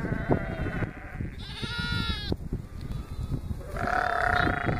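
White Dorper sheep and lambs bleating: three calls, a high-pitched one about a second and a half in and a longer, lower one near the end, over a low rumbling noise.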